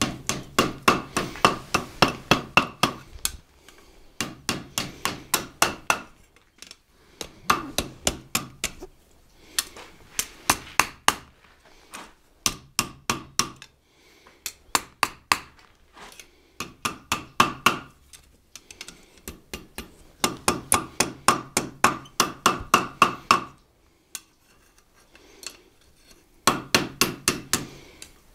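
Hand hammer striking a red-hot iron bar over the anvil horn, curling its end into a ring. The blows come in quick runs of about four or five a second, each run a few seconds long with short pauses between.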